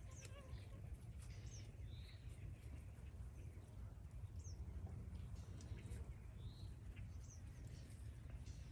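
Chickens pecking at salad scraps on dirt, with scattered light taps and clicks, while short high chirps that fall in pitch come every second or two over a faint low rumble.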